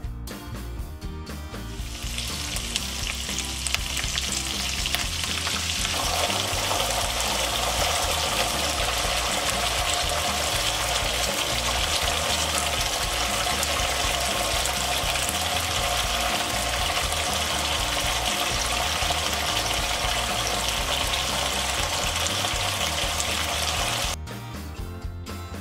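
Hot oil with whole spices sizzling in a frying pan, joined about six seconds in by the bubbling of tomato puree frying in the oil. The sizzle is steady and cuts off suddenly near the end.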